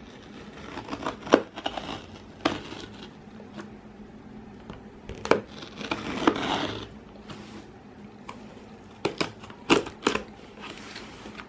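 A parcel's packaging being cut open with a knife: tape and wrapping crinkling and tearing, with scattered sharp clicks and scrapes.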